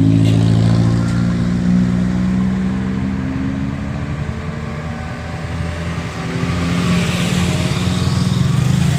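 A heavy vehicle's engine running loud and steady, its pitch slowly dropping over the first few seconds, then revving up again with a hiss about seven seconds in.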